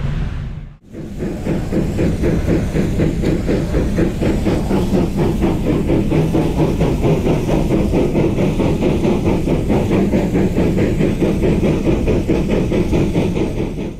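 Steam rotary snow plow train at work: fast, even steam-exhaust chuffing over a steady hiss of steam. It starts after a short break about a second in.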